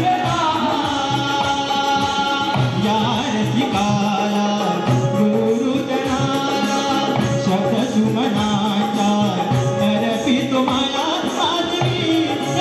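Konkan Shakti-Tura devotional song (stavan) music: a melody line over a hand-drum rhythm, with some singing.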